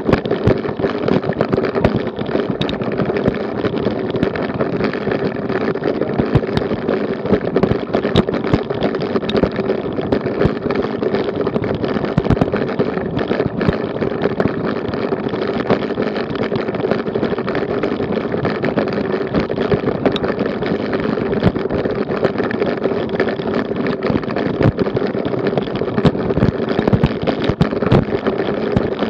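Bicycle riding over cobblestones, the wheels and frame rattling and juddering on the setts and shaking the action camera on its mount: a dense, unbroken stream of knocks over a steady drone.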